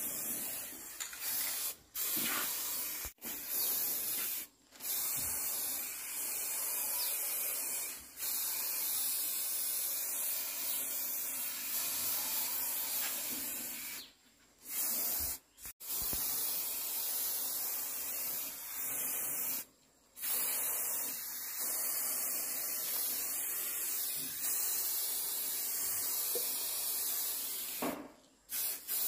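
Aerosol spray-paint can hissing in long continuous bursts, with several short pauses where the nozzle is released.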